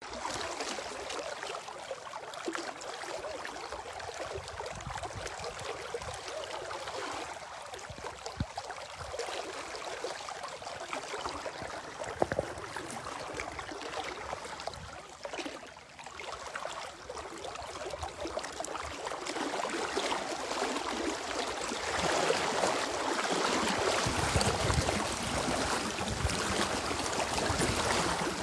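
Steady rush of a wide, fast-flowing muddy river, growing louder and fuller towards the end, with a couple of brief knocks about a third of the way in.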